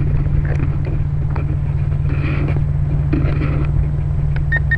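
A steady low rumble with a few faint scuffs and ticks, picked up by the onboard camera microphone of a crashed Syma X5SC quadcopter.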